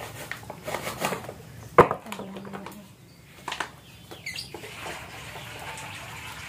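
Plastic bags rustling as packaging is handled, with a sharp knock about two seconds in and another click later. A steady soft hiss follows in the second half.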